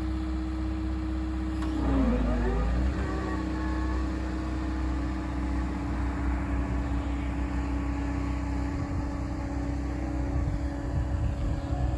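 2008 Liebherr A314 Litronic wheeled excavator's diesel engine running. About two seconds in its note dips and then climbs back as the machine pulls away, and it then runs steadily as the excavator drives off on its wheels.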